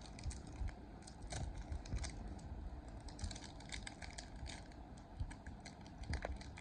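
Small plastic zip-lock pouch crinkling and rustling as it is handled and opened, with many irregular soft clicks and crackles.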